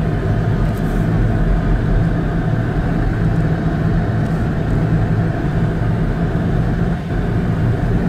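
Steady low drone inside the cabin of an old Ford Explorer driving at about 30 mph on an unplowed, snow-covered road: engine hum mixed with tyre and road noise.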